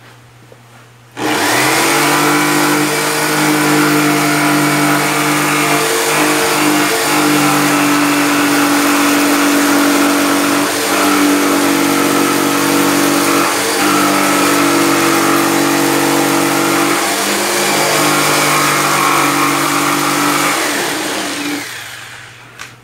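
Corded Black & Decker jigsaw cutting a handle opening through the top panel of a speaker box. The motor starts suddenly about a second in and runs at a steady pitch with a few brief dips, then winds down near the end.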